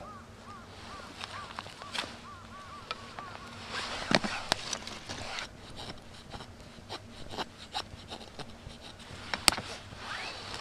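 A fixed-blade knife shaves thin curls off a stick to make feather sticks: a run of scrapes and sharp clicks, busiest about four seconds in, with a loud click later on.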